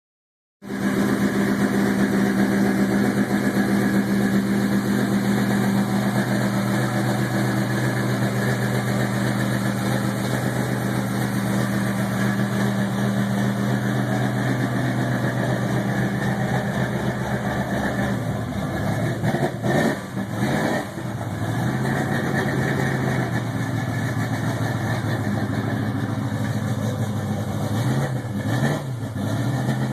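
Chevrolet El Camino bracket-race car engine idling steadily, then blipped briefly a few times about two-thirds of the way through and again near the end.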